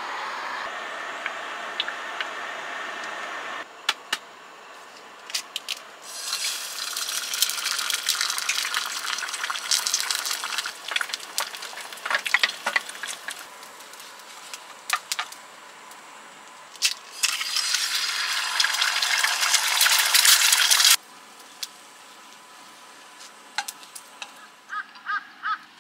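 Eggs frying in a nonstick pan on a gas camping burner: a steady burner hiss at first, then two long stretches of sizzling and crackling, the second cutting off suddenly about 21 seconds in, with a few light clicks and taps of utensils between and after.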